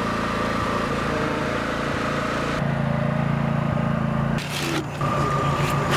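An engine running steadily with a low drone. About four and a half seconds in the sound changes, with short bursts of hiss and a higher steady whine joining.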